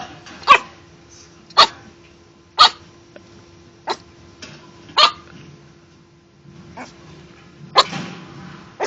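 A dog barking single sharp barks, roughly one a second, about six in all, with a longer pause before the last one.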